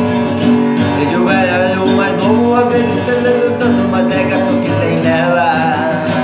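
Acoustic guitar strummed steadily in an instrumental passage between sung verses of a song.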